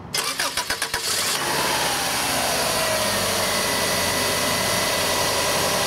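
1996 Subaru Legacy 2.2L flat-four engine cranked by the starter for about a second, then catching and running, its pitch falling as it settles to a steady idle. The engine starts even though the car was brought in for not starting.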